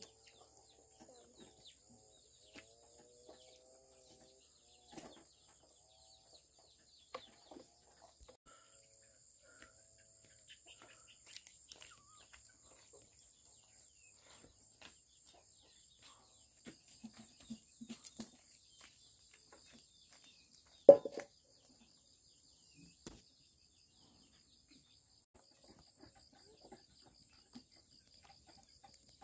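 A chicken clucking softly in the first few seconds over a steady high-pitched insect drone, with scattered small clicks and one sharp knock about 21 seconds in.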